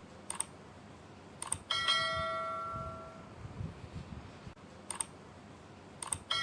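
Short clicks followed by a single bell ding that rings out for about a second and a half, about two seconds in; more clicks come near the end, leading into a second identical ding.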